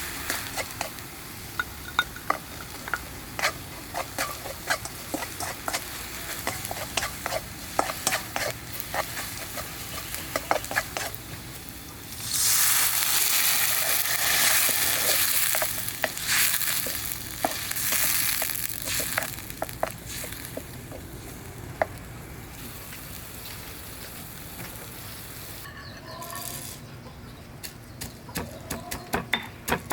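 Food frying in hot oil in a pan, with frequent clicks and scrapes of a utensil stirring it. About twelve seconds in, the sizzling suddenly gets much louder for a few seconds, swells again briefly, then settles back to a quieter fry.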